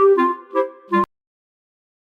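Instrumental background music, a melody of short separate notes, that cuts off suddenly about a second in and leaves silence.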